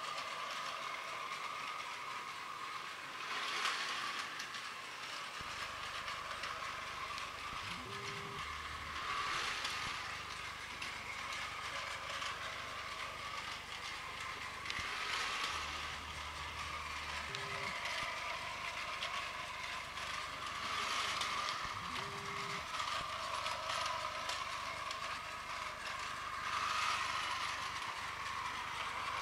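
Battery-powered Plarail toy train running on plastic track: a steady whine from its gearbox with a clicking rattle, swelling louder about every six seconds.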